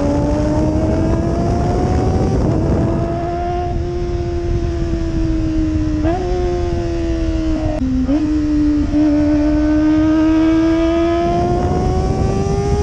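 Kawasaki ZX-25R's 249 cc inline-four running through an Austin Racing exhaust while riding. The engine note drops right at the start, jumps briefly about six and eight seconds in, then climbs slowly as the bike gathers speed, over a steady rushing noise.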